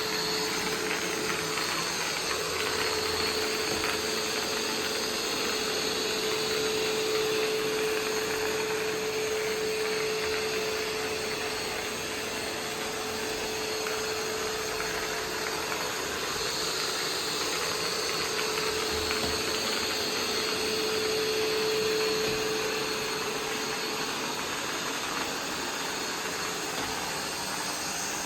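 Roomba 505 robot vacuum running: a steady whir with a humming tone that swells and fades as it works.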